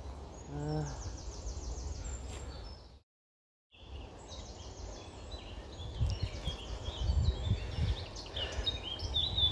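Woodland songbirds singing in high trills and chirps over a low rumble on the microphone, with footsteps thudding as the walker moves down the path. The sound drops out completely for under a second about three seconds in.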